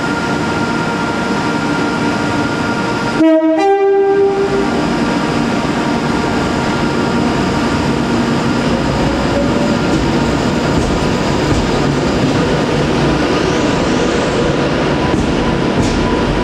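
A train horn sounds two short notes, the second higher, about three seconds in, over the steady rumble of an Avanti West Coast Class 390 Pendolino electric train running in along the platform.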